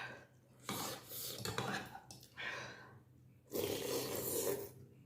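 Loud slurping of noodle soup (thukpa noodles and broth) in four bursts. The last burst is the longest and loudest, about a second.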